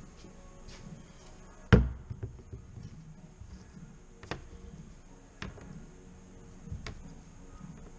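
Rubber seals and a metal seal housing handled on a workbench by gloved hands: one loud knock a little under two seconds in, then a few lighter taps and knocks.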